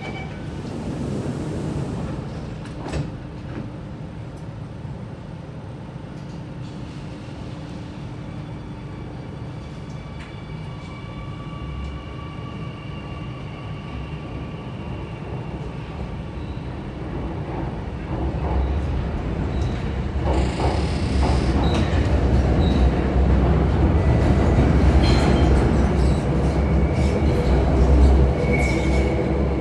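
Alstom Metropolis C830C metro train doors sliding shut, then the train pulling away with a steady electric whine. Its running and wheel noise builds up and is loudest over the last third as it picks up speed.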